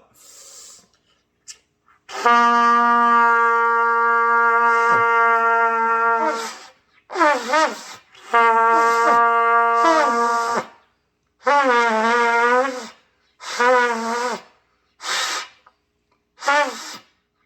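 A beginner playing a trumpet: two held low notes of a few seconds each, then a run of short, wavering notes that bend in pitch and break off after about a second. The player cannot sustain the tone, which the teacher puts down to forcing the air too hard to play long.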